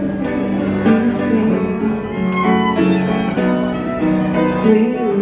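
Music led by a violin, playing a melody of long held notes.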